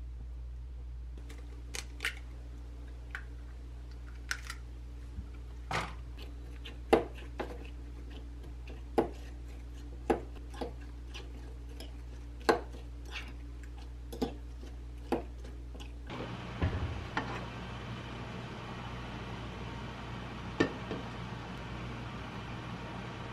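Kitchen prep sounds: scattered sharp taps and clicks of a knife cutting canned ham on a wooden cutting board and a spoon clinking against a glass bowl while egg and onion are mixed. About sixteen seconds in, these give way to a steady hiss from a preheated, oiled frying pan, with a few knocks as the bowl and spatula are handled.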